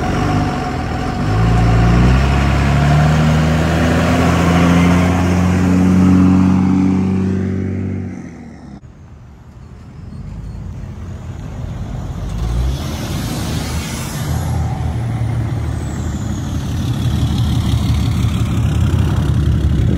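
Pickup truck engines pulling away, the engine note climbing steadily for about eight seconds before cutting off abruptly. Another truck's engine then runs and builds again, with a high whistle that rises and then falls past the middle.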